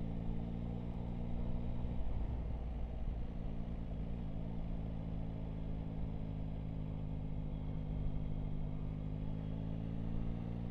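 Yamaha Tracer 9 GT's three-cylinder engine running steadily at low road speed, its note dropping away briefly about two seconds in.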